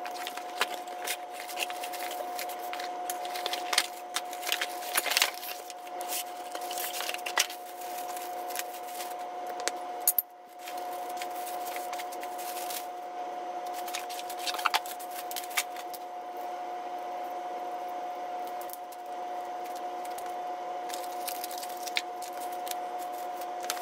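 Unpacking a boxed electric winch kit by hand: a utility knife cutting the box open, then cardboard and plastic bags rustling and small metal parts clinking as they are set down on a concrete floor. A steady hum runs underneath.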